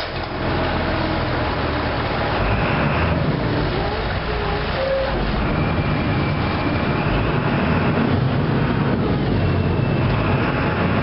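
Harbour ferry's diesel engine running with a steady low rumble as the boat manoeuvres alongside a floating landing stage.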